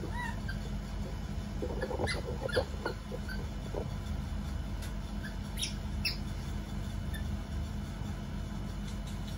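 Baby macaques giving short, high squeaky calls: one just at the start and a cluster about two seconds in, with a few sharp clicks around six seconds. A steady low rumble runs underneath.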